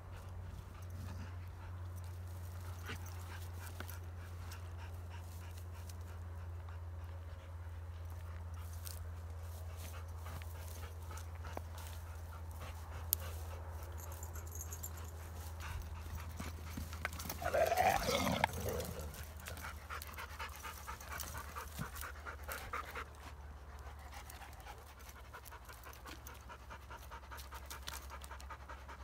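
Kangal dogs panting as they wrestle, with a steady low hum underneath. About two thirds of the way through comes one short, louder dog vocal outburst that rises and falls in pitch.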